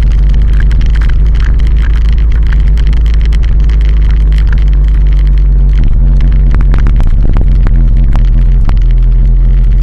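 Loud, steady low rumble of wind, engine and tyre noise from a vehicle-mounted action camera driving along a concrete road, with many sharp rattling clicks from the mount, more of them in the second half.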